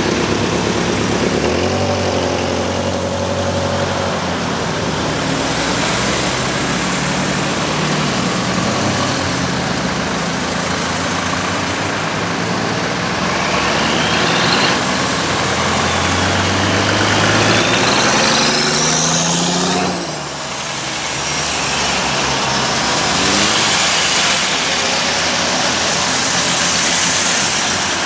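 A slow procession of cars passing one after another, their engines running at low speed in a steady, loud mix. Around the middle, a couple of engine notes rise in pitch as cars pull past.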